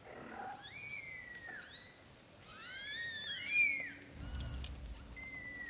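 Very young British shorthair kittens mewing: about four thin, high-pitched cries that rise and then fall, the loudest near the middle. A soft low bump with a few clicks comes about four seconds in.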